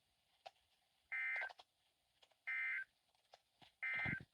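Three short bursts of digital EAS/SAME data tones, a rasping warble about a second apart: the end-of-message code that closes a NOAA Weather Radio weekly test.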